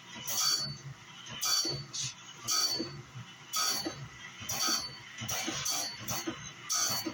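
Wood-Mizer CBN bandsaw blade sharpener running, its wheel grinding one tooth after another in a steady rhythm of about one short grind a second.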